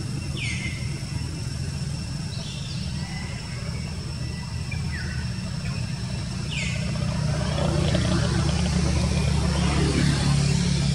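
A motor engine running steadily, a low hum that grows louder about eight seconds in, with short high falling chirps now and then.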